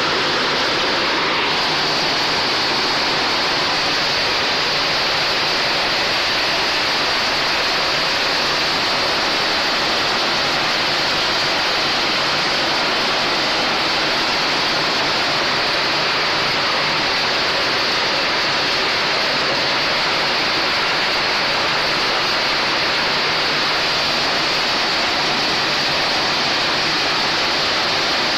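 PET bottle label remover machine running with plastic bottles churning inside it: a loud, steady rushing noise that holds level throughout.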